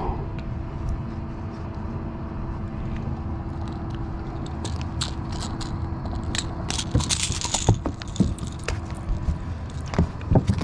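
Metal clicks and rattles from fishing pliers and a topwater popper's treble hooks as the lure is worked out of a striped bass's mouth on the boat deck, bunched about halfway through, over a steady low hum.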